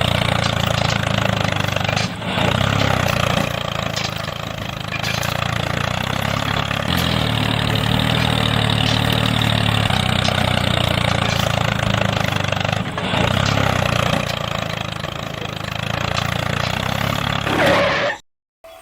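An engine running steadily, its pitch shifting a few times, then cutting off abruptly near the end.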